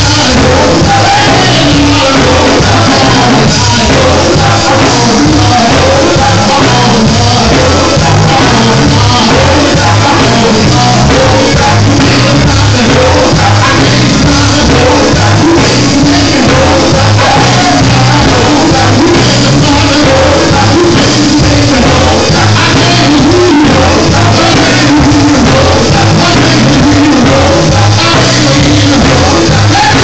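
Gospel quartet performing live with a band: the lead singer sings into a microphone over backing voices and a steady, bass-heavy beat, played loud.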